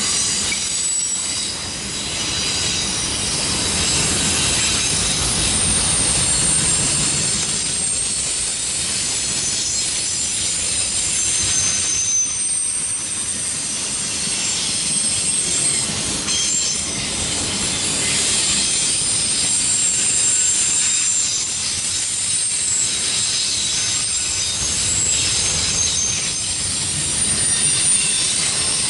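Loaded autorack cars of a CSX freight train rolling past at close range: a steady rumble of steel wheels on the rails, with a high-pitched wheel squeal that wavers and comes and goes throughout.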